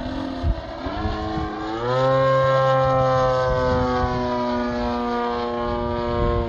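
Radio-controlled aerobatic model airplane flying overhead, its motor and propeller note changing pitch through the manoeuvres. It dips early, climbs sharply about two seconds in and holds high while slowly sagging, then drops near the end.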